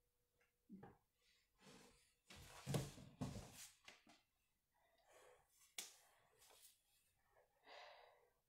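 Intermittent rustling and knocking from someone moving and handling things close to the phone. There are a few louder bumps about two to three and a half seconds in and a sharp click near six seconds, with faint shuffling between.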